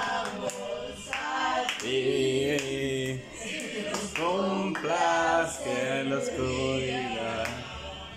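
Music: a song with a singing voice over a bass line and a steady beat.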